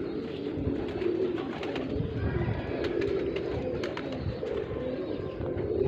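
Domestic pigeons cooing, low coos overlapping one another without a break.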